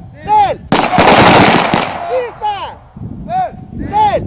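A volley from several Kalashnikov-type assault rifles about a second in, with sharp reports that ring on for about a second. Short shouted commands come before and after it.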